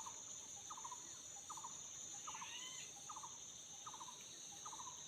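Steady high-pitched insect chorus, with a short rattling call repeating about every 0.8 s and a brief whistled bird note about halfway through.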